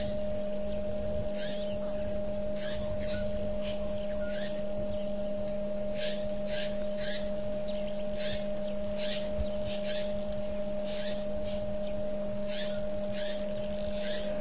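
Steady electrical hum with a constant pitched tone from the camera's audio feed. Over it, short sharp high calls sound irregularly, about once or twice a second.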